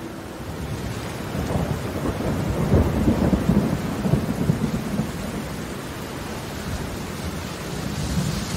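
Thunder rumbling over steady rain. The rumble swells about a second and a half in, is loudest around three to four seconds in, and dies away by about six seconds, leaving the rain.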